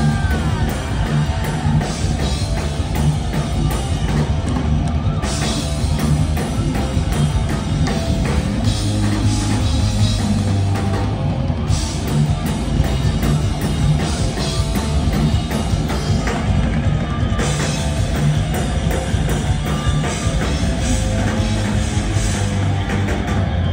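Thrash metal band playing live: distorted electric guitars, bass and drum kit in a passage without vocals.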